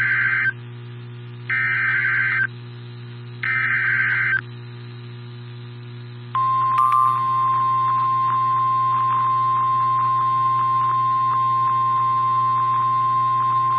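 Emergency Alert System SAME header on NOAA Weather Radio: three short buzzing data bursts about a second and a half apart, then, a couple of seconds later, the long steady single-pitched warning alarm tone that announces a tornado warning.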